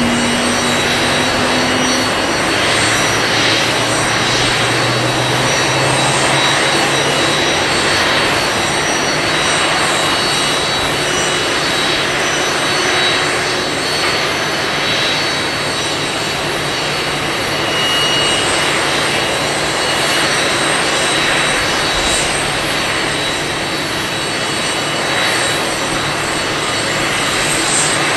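Jet engines of an ANA Boeing 747-400D running steadily: a broad, continuous rushing noise with several high, steady whining tones from the engines.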